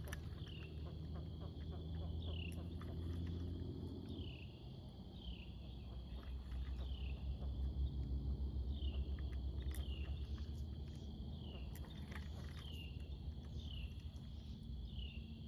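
An outdoor insect chorus: a steady high-pitched drone with a short chirp repeating about once a second, over a low rumble.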